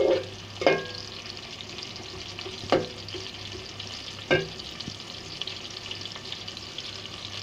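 Sliced onions sizzling steadily in hot ghee in a metal pot, frying toward light golden brown. A spoon stirring them knocks sharply against the pot four times in the first half.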